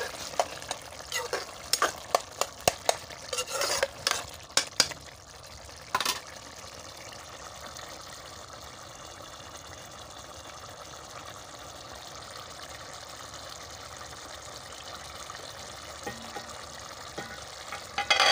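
A spoon stirring gourd curry in a steel pot, clinking and scraping against the pot for about six seconds, then the thin curry simmering with a steady sizzling hiss as its water cooks down. Right at the end a steel lid clatters against the pot.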